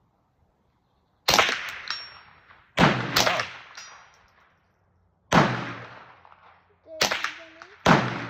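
Suppressed .22 LR Ruger 10/22 rifle fired about five or six times, each shot a sharp crack with a tail that dies away over about a second. A brief faint high ring comes just after the first shot, the ding of a bullet striking a steel target.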